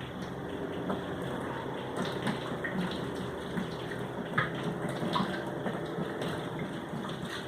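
Water running steadily from a tap, with small scattered clicks and knocks over it.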